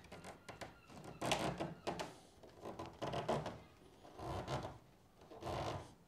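Fingertips rubbing and pressing a veneer patch down onto a wooden tabletop, a series of short scuffing rubs about a second apart, as the patch is pushed into touch-dry glue.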